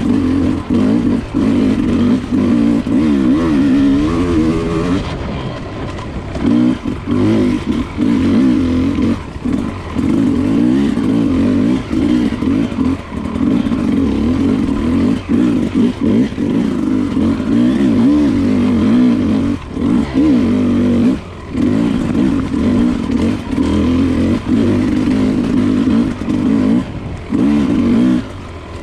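Enduro dirt bike engine heard from onboard the bike, revving up and down as the throttle is worked along a trail, with a few brief dips where the throttle is shut off.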